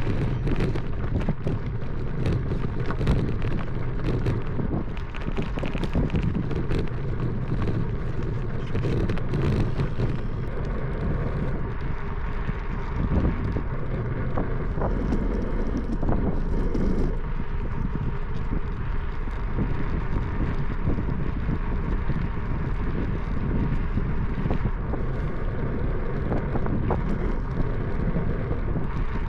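Wind buffeting the microphone of a camera on a moving bicycle, over steady tyre and road noise, with scattered small clicks and rattles.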